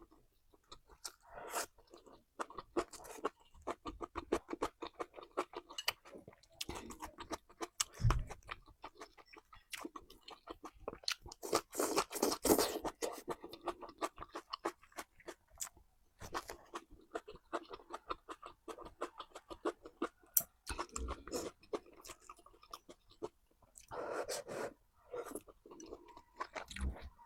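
Close-miked eating: a person chewing food with wet smacking and crunching, in runs of quick clicky bites.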